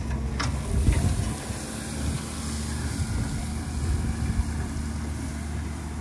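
Tractor engine running steadily as it pulls a disc spreader broadcasting lime, with a brief knock about a second in.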